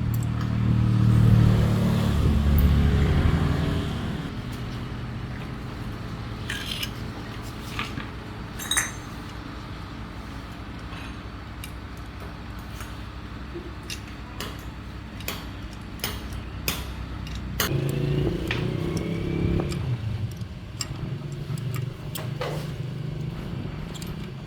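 An engine runs with a steady low hum. It swells louder for the first few seconds and again briefly near the end, with scattered light metallic clinks throughout.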